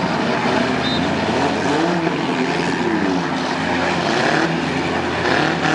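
Several compact-car engines revving up and down over a continuous rumble of demolition-derby engines.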